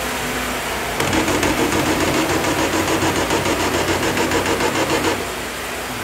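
Band sawmill machinery: over the steady hum of the running mill, a louder mechanical run with a rapid regular clatter, about four pulses a second, starts about a second in and stops suddenly about four seconds later.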